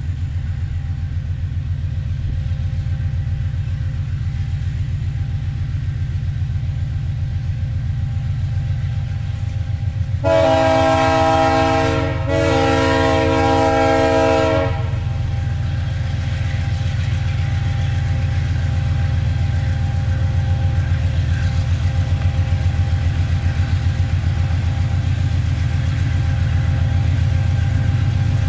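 Diesel freight locomotives approaching with a steady low engine rumble that grows slightly louder as they come on. A little over a third of the way in, the lead locomotive's air horn sounds two long blasts of about two seconds each, several notes sounding together.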